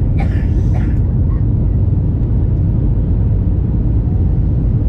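Steady low roar inside the cabin of an Airbus A321neo climbing out after takeoff: engine and airflow noise heard from a window seat over the wing.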